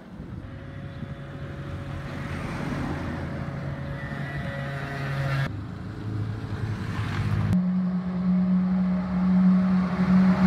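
Road traffic heard in a few abrupt cuts: cars driving past, then a MAN dump truck's diesel engine running with a steady low hum that grows louder as the truck approaches.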